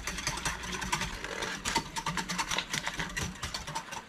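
Metal wire whisk beating a thin liquid in a glass Pyrex measuring cup, its wires clicking rapidly against the glass several times a second as powdered pectin is whisked into apple cider vinegar.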